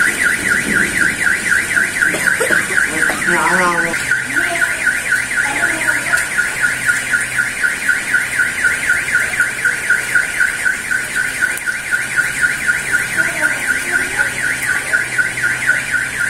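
Car alarm sounding: a loud electronic tone warbling up and down several times a second, without a break.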